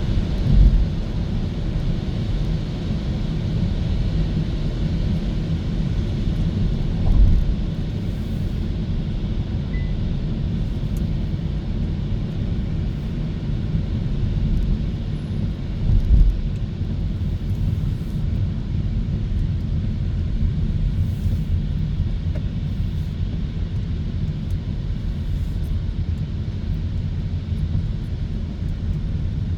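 Tyre and road noise of a Hyundai Kona electric car driving at speed: a steady low rumble with no engine note, rising briefly three times as it goes over bumps, about a second in, at about seven seconds and at about sixteen seconds.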